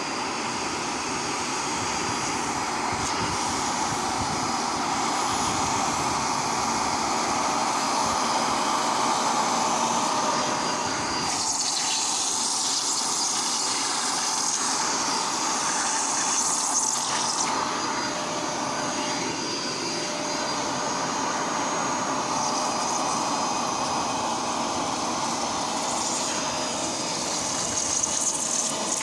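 Bissell vacuum cleaner running steadily, its motor giving a whine with a few held tones over a rushing airflow. About eleven seconds in, a louder high hiss of air joins for around six seconds, and it returns briefly near the end.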